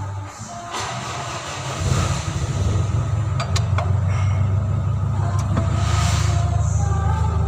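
A steady low rumble like a running engine comes in about two seconds in and holds. A few light metallic clicks sound over it as a long socket extension is set onto the valve cover bolts.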